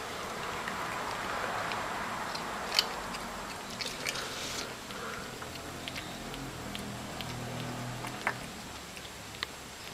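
Soft chewing and mouth-smacking in a quiet small room, with a few scattered sharp little clicks.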